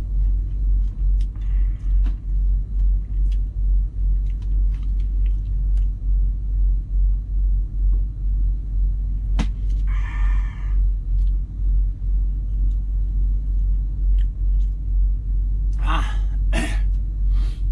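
Low rumble of an idling truck engine heard inside the cab, pulsing a few times a second. About ten seconds in comes a second-long slurp through a drinking straw, and near the end two short sharp bursts of noise.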